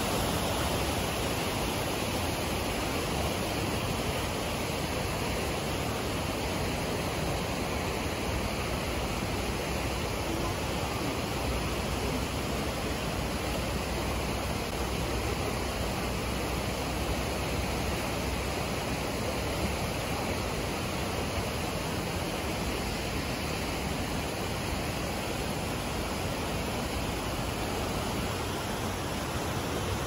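Fast-flowing creek rushing over rocky riffles: a steady, even rush of water.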